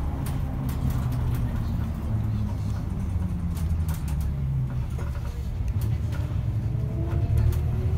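A BRT route bus driving along, heard from inside: a steady low engine and road rumble with scattered faint clicks and rattles. A faint engine note rises slightly near the end.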